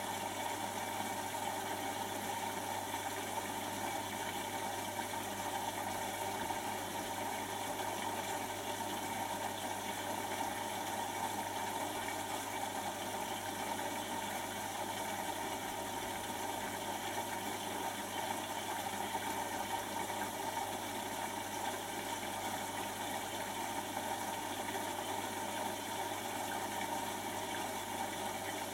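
Beko WTB741R2A front-loading washing machine in its wash phase: a steady motor whirr and hum as the drum turns a full load in soapy water, with water swishing inside.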